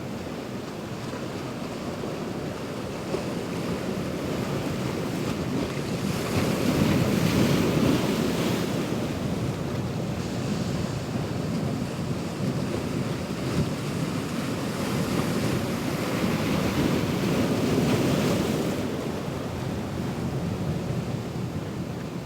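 Ocean waves surging and breaking on the shore. The sound swells twice, with the wash building and falling away each time.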